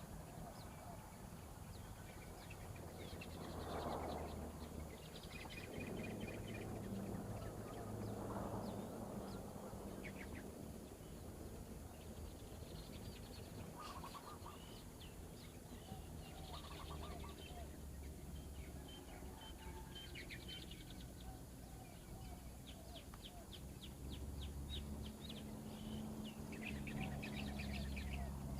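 Birds calling outdoors: many small high chirps and quick trills from songbirds scattered throughout, with a few lower, softer calls in between.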